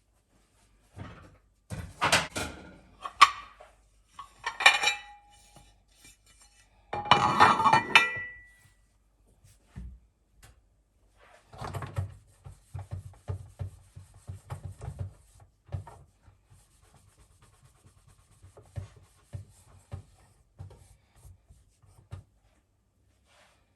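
Dishes and cutlery being handled: sharp clinks with brief ringing, a louder clatter about seven seconds in, then softer knocks and rubbing.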